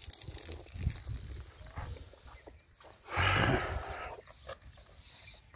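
Cattle giving one short, rough snort about three seconds in, much louder than the quiet knocks and shuffling around it.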